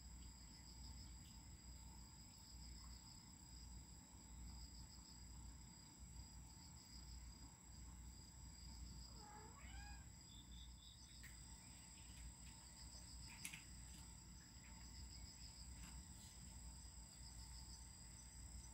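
Faint night insects: crickets keep up a steady high trill alongside a pulsing chirp. About nine seconds in, a short run of rising and falling call notes sounds, followed by a few faint clicks.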